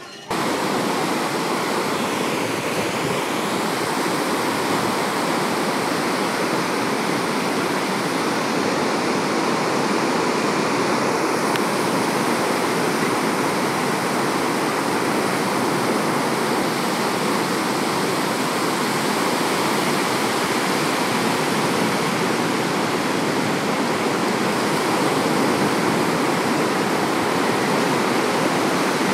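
Sea surf washing onto a beach: a continuous, even hiss of breaking waves with no single wave standing out. It starts suddenly just after the beginning.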